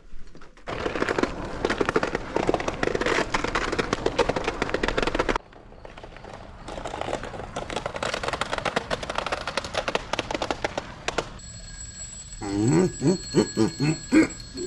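Alarm clock ringing with a harsh, rapid rattle. It cuts off abruptly about five seconds in, then starts again more quietly. Near the end a steady high tone sounds, with a wavering rising-and-falling sound over it.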